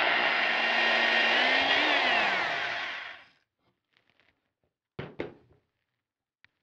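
Corded electric drill with a 5/32-inch bit running steadily while boring through two taped layers of paper rocket body tube. About two seconds in it is released and its whine falls in pitch as the motor spins down. Two short knocks follow near five seconds in.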